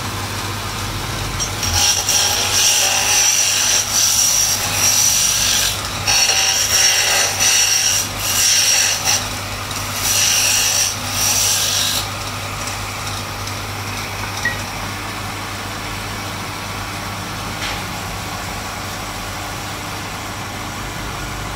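Wood lathe running with a steady hum while the spinning wooden spindle is worked by hand, giving a loud rasping hiss in about four passes with short breaks. About halfway through the rasping stops and only the lathe's hum goes on.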